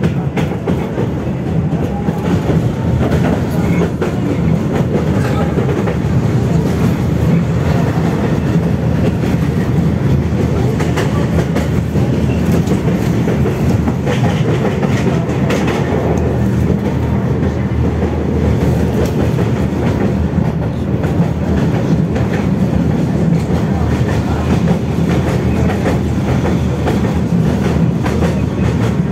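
Tatra T3E tram running along the track between stops: a steady rumble of wheels on rails, with scattered short clicks.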